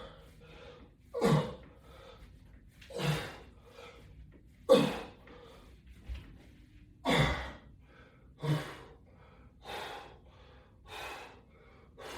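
A man breathing hard and forcefully in time with resistance-band pulls, one heavy breath about every second and a half, eight in all.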